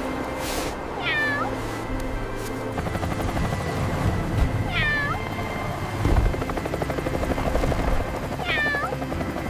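A cat meowing three times, about four seconds apart, each a short call that dips and turns up at the end, over a steady low background.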